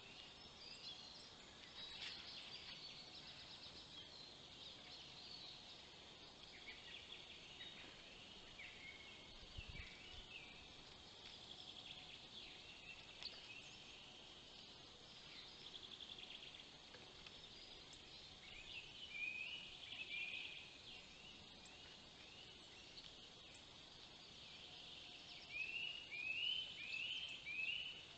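Wild songbirds singing, with overlapping songs and calls. Near the end, one bird repeats a short, loud note four times.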